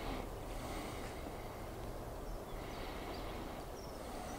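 Faint, steady outdoor background noise, with a few faint high bird chirps near the end.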